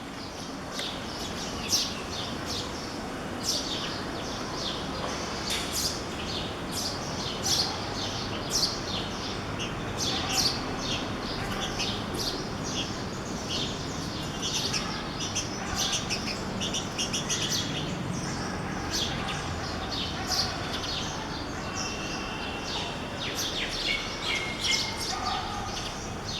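Small birds chirping: many short, high calls, irregular and overlapping, over a steady low background hum.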